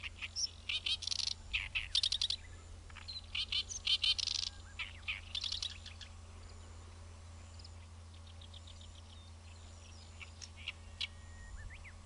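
Oriental reed warbler singing its loud, harsh song of rapid repeated chattering notes in short bursts, which stops about six seconds in, leaving only faint bird calls.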